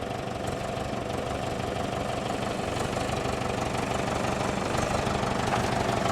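Vehicle engine idling steadily, growing slightly louder toward the end.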